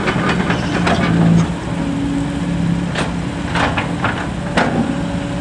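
A truck engine running steadily, with a few sharp clicks or knocks in the second half.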